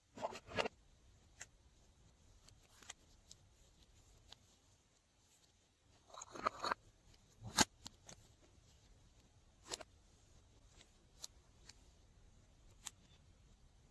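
Slime being handled and mixed: scattered sticky clicks and pops, with two short crackling squishes, one just after the start and one about six seconds in.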